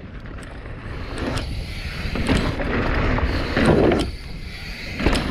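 Mountain bike descending a rocky trail: tyres rolling over dirt and rocks, wind rushing on the microphone, and the bike rattling, with sharp knocks now and then. It gets louder from about a second in.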